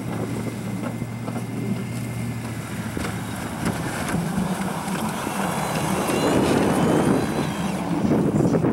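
Pickup truck with a straight-blade snowplow running as it pushes snow, growing louder as it comes close in the second half.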